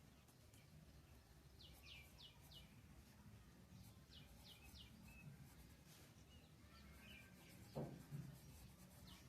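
Faint bird chirping: short falling chirps that come in quick runs of three, with scattered single calls. A brief soft thump sounds near the end.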